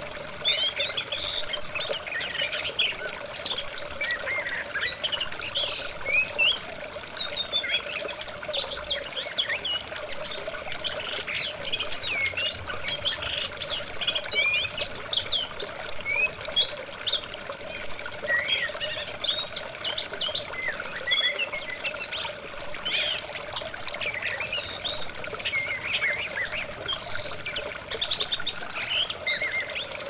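Many small wild birds chirping and calling in quick, overlapping bursts over running water, with a steady low tone underneath. It is a bird-lure and water-sound recording played to calm caged songbirds.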